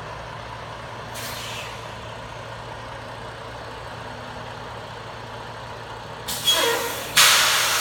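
Semi truck's diesel engine running steadily at low speed, with a brief faint air hiss about a second in. Near the end a short squeal, then a loud burst of compressed-air hiss from the air brakes that slowly fades.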